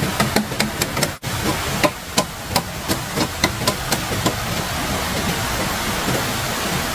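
Hammering: a quick run of sharp knocks, about three a second, stopping about four seconds in, over a steady rushing noise.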